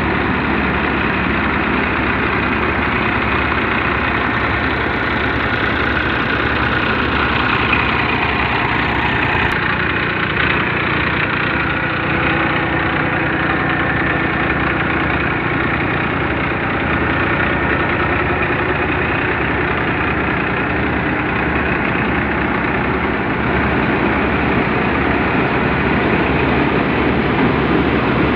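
Tractor-powered Mayur thresher running steadily while threshing isabgol (psyllium), a dense, even machine noise with the tractor engine's low, regular beat underneath. The tractor runs slowly and unstrained, under no real load.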